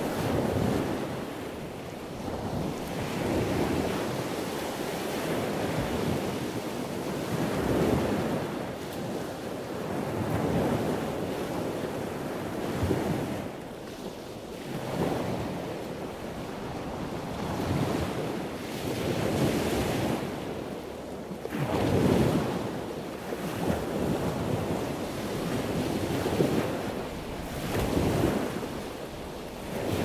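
Wind buffeting the microphone: a rushing noise that swells and eases in gusts every couple of seconds.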